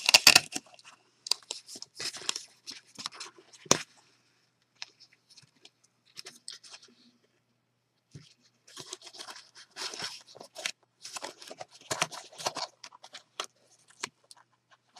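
Folded cardstock purses being handled and opened: short, irregular bursts of paper rustling and rasping, with a sharp tap about four seconds in and a brief lull in the middle.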